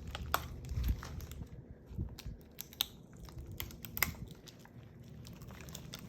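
Thin plastic bag crinkling in short, scattered crackles as it is handled and opened, with a few soft low bumps in the first couple of seconds.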